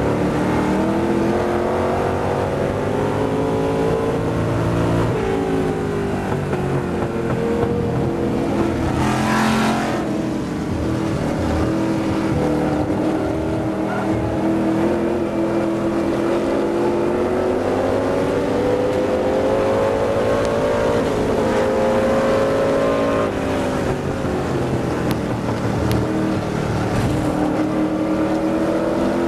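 McLaren M1B's Chevrolet V8 racing engine heard onboard under hard running, its pitch dipping as it slows for corners and then climbing steadily as it accelerates. A brief rush of noise comes about nine to ten seconds in.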